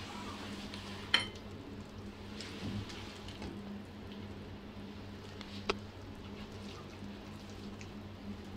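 Kitchen tongs knocking against a nonstick kadai as chicken chaap pieces are lifted out of the oily gravy: a sharp click about a second in and a smaller one near the middle, over a faint sizzle and a steady low hum.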